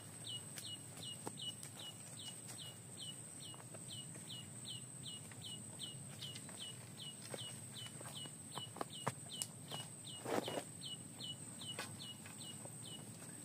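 A bird repeating a short, high, falling note about two or three times a second, stopping near the end, over a steady high thin whine. A few scattered clicks and a brief rustle about ten seconds in.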